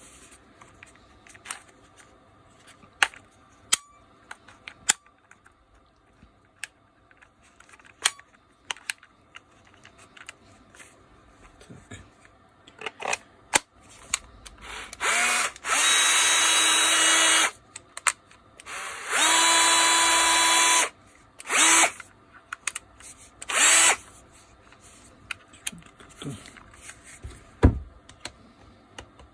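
Bosch GWB12V-10 12 V cordless angle drill's motor and freshly replaced right-angle gearbox test-running at a steady speed in two runs of about two seconds each, followed by two short blips on the trigger. Scattered sharp clicks of the tool being handled come before.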